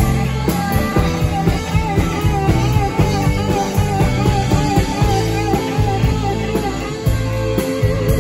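Live rock band playing: a lead electric guitar holds long, wavering notes over steady drums, bass and rhythm chords.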